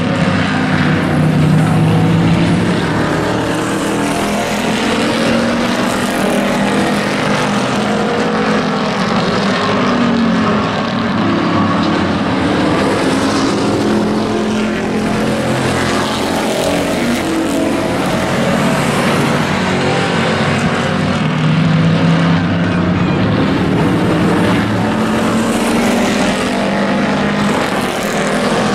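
A pack of pickup race trucks' engines running at race speed around the oval. Several engine notes overlap, rising and falling in pitch as the trucks go round, and the sound swells louder about two seconds in and again near three-quarters of the way through.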